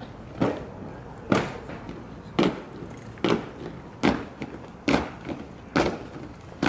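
A squad of soldiers marching in step, their boots striking the stone together about once a second, seven times.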